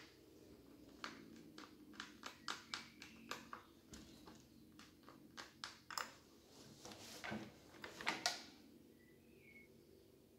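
Saw chain links clicking and rattling as a loose chain is worked around a chainsaw's clutch drum and bar: a string of small irregular clicks, with a few louder clatters about eight seconds in.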